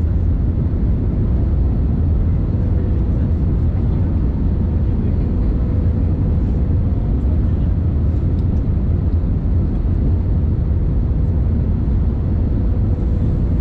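Cabin noise inside an Airbus A321neo on approach: a steady low rumble of airflow and its Pratt & Whitney PW1100G geared turbofan engines, with a faint steady tone running through it.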